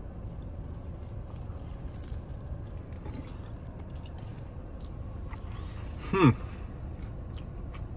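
A person chewing a bite of pizza with faint soft mouth sounds, over a steady low hum in a car cabin. About six seconds in comes a short "mmm" that falls in pitch.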